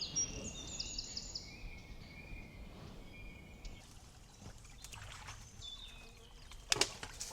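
Songbirds singing, with a quick run of repeated high notes in the first second or so and thinner whistled notes after, over the steady rush of a shallow stream. A couple of sharp sounds come near the end.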